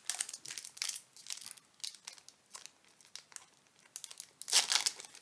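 Foil wrapper of a Pokémon booster pack crinkling in the hands, in irregular crackles, then torn open with a longer, louder rip near the end.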